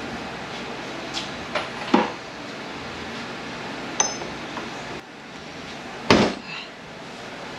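Metal transmission parts knocking and clinking against a steel workbench during teardown of an MT82 manual gearbox. There are a few light knocks, a ringing metallic tap about four seconds in, and a heavier clunk about six seconds in as a part is set down on the bench.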